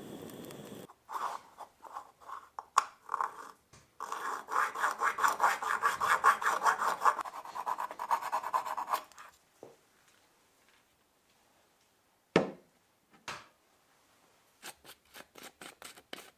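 Flat metal blade scraping excess solder off a thin brass neck in short strokes, speeding up to rapid scraping at about five strokes a second. Near the end come a couple of knocks and a quick run of small clicks from a plastic bottle cap being opened.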